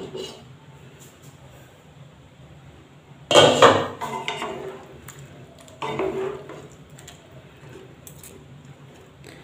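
Cookware clatter from a nonstick pan of steamed cauliflower florets in water. Its glass lid is lifted off at the start, then there are two louder bursts of clatter against the pan about three and six seconds in, as the florets are moved with a wooden spatula.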